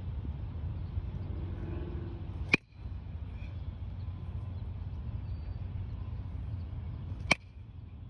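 A bat hitting a pitched baseball twice, about five seconds apart: each hit is a single sharp crack with a brief ring. A steady low background noise runs under both.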